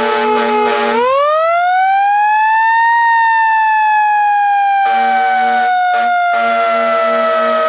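A siren winds up to its peak over about two seconds and then slowly winds down. A lower buzzing horn sounds in short, rapid pulsed blasts at the start and again from about five seconds in.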